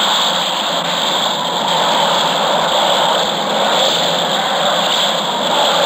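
Steady hiss and rumble of a worn 1980s cassette tape recording, with no clear speech; the noise comes from the tape's age and poor sound quality.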